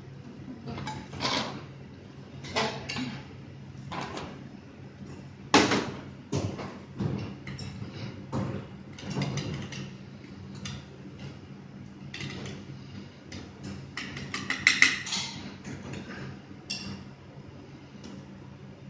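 Plating sounds: a metal spoon clinking and scraping against a frying pan and a metal ring mould on a china plate, in irregular clicks and knocks, with a quick flurry of clinks about three quarters of the way through. A steady low hum runs underneath.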